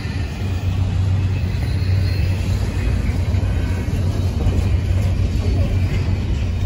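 Diesel locomotive engine running with a steady low rumble.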